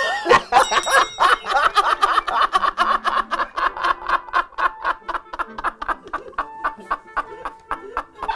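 Two men laughing hard, a long run of quick, cackling ha-ha-ha pulses.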